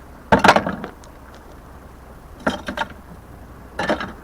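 Metal clanking and clattering in three bursts, the first and loudest about half a second long: scrap metal being handled, knocking together and against the fishing magnet.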